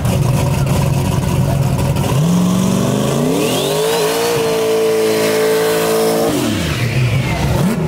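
Turbocharged first-generation Chevrolet Camaro SS drag car doing a burnout. The engine idles, revs up sharply about two seconds in and holds high revs for a couple of seconds with the rear tyres spinning, then drops back to idle near the end. A high whistle rises with the revs.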